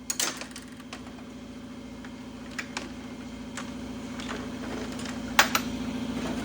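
Sharp metallic clicks and clanks of tools and jack parts being handled under the vehicle, a few scattered knocks with the loudest a little past five seconds in. A steady low hum runs underneath and slowly grows louder.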